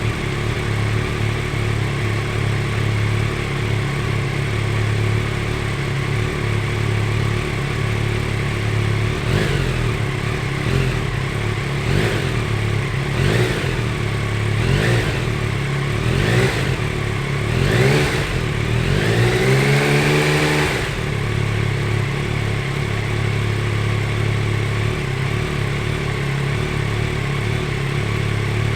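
Yamaha Tracer 9 GT's 890 cc inline three-cylinder engine idling, then blipped through about seven quick throttle revs and one longer held rev that falls back to a steady idle.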